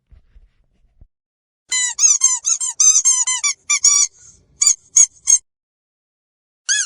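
Squeaky dog toy squeezed rapidly, giving a quick run of high squeaks at about five a second. This is followed by a few shorter groups and single squeaks, and one more near the end.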